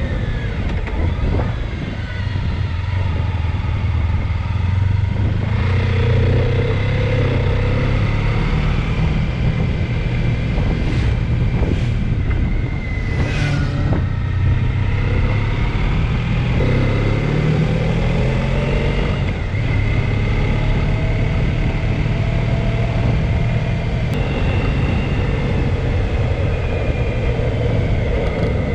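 Honda ST1300 Pan European's V4 engine running under way, its pitch shifting up and down with throttle and gears. A short whoosh rises and falls about halfway through.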